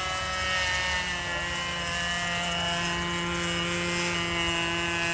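Radio-controlled model autogyro (a profile-scale Kellett) flying overhead, its motor giving a steady whine of several tones that shifts slightly in pitch as it flies.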